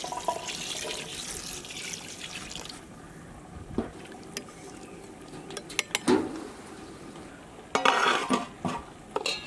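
Water poured into a large metal pot of simmering chicken curry, a steady splashing pour for about three seconds. Then a steel ladle stirring and knocking against the pot, and a metal plate lid clattering onto it about eight seconds in.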